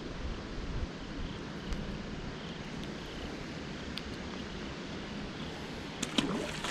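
Steady outdoor background noise with a few faint clicks from hands handling a small fish and fishing line.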